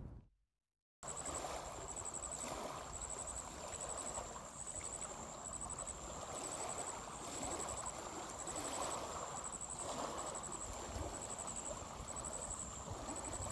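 Small waves lapping on a stony shore as a steady soft wash, with a thin, high insect chirp repeating in short pulsed bursts throughout. It starts after about a second of silence.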